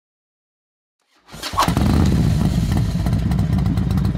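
A motorcycle engine starts up about a second and a half in and runs with a fast, uneven pulsing beat.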